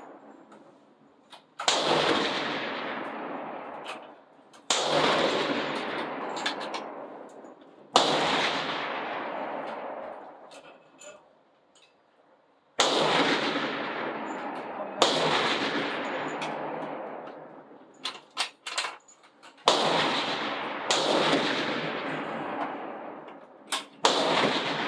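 Benchrest rifles firing single shots along a roofed firing line: about eight sharp reports at irregular intervals, each trailing off in a long echoing decay. There are a few short sharp clicks a little past the middle.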